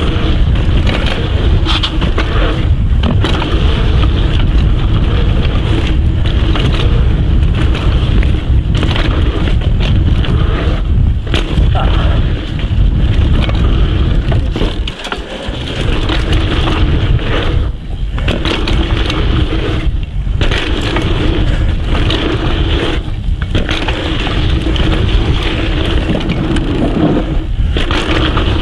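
Rocky Mountain Thunderbolt mountain bike ridden fast down a dirt jump trail, heard from a GoPro Hero 7 Black on the bike: constant wind rush on the microphone over tyres rolling and scrabbling on hard-packed dirt and the bike rattling, with a few brief lulls and an on-and-off hum.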